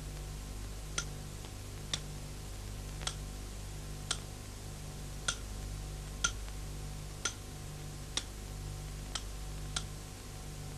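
Ultrasonic wire-bonding machine clicking about once a second as its tool makes stitch after stitch, over a low hum that pulses on and off.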